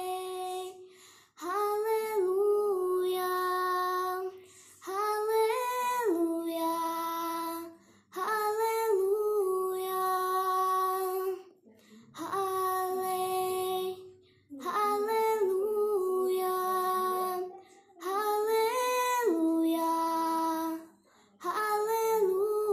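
A girl singing a Hindi worship song unaccompanied, in about seven phrases of roughly three seconds each, ending on held notes, with short pauses for breath between them.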